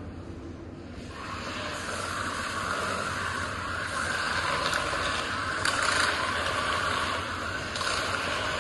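Remote-control magnetic sweeper running: a steady mechanical whirring noise from its drive that swells about a second in and carries on with small rises and falls.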